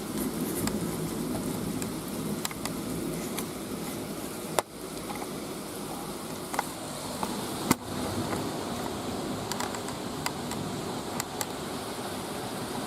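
Steady rain of a thunderstorm, a continuous hiss with a few sharp taps of drops landing close by, two of them standing out a few seconds apart.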